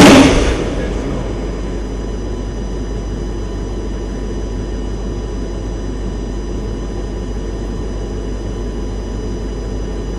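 The tail of a TOW missile's launch blast, very loud at the start and dying away within about a second, followed by a steady low mechanical rumble.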